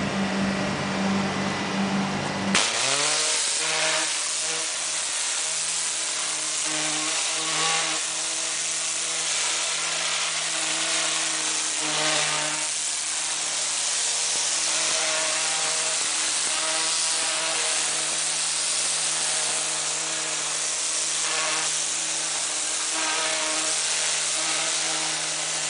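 A high-pressure water jet hisses against a fibreglass boat hull, blasting off barnacles and marine growth, over the steady hum of the pressure-washer pump. The hiss swells and eases every few seconds as the wand sweeps along the hull. It starts abruptly about two and a half seconds in, after a different steady hum.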